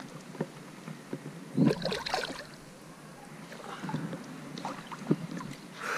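Creek water sloshing and splashing, with one loud splash about a second and a half in as a large cichlid is let go back into the water.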